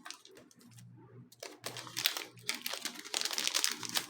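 Crinkling and rustling of a trading-card booster pack wrapper and cards being handled, in irregular crackles that grow busier after the first second or so.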